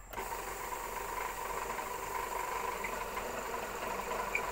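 Belt-driven yarn beam of a doormat-making machine starting up just after the start and running steadily, the pulley and coupling spinning the yarn beam with an even mechanical whir and a constant hum.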